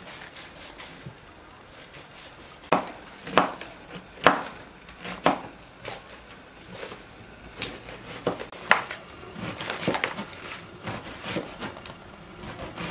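Kitchen knife knocking on a wooden cutting board as peeled onions are cut, in a string of irregular sharp knocks.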